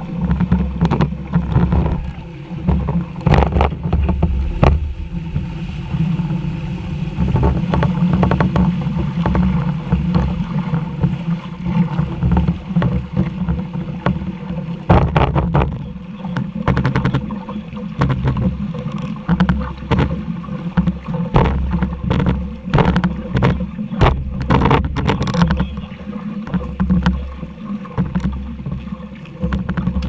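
A boat on open water: a steady low rumble with frequent short knocks and splashes.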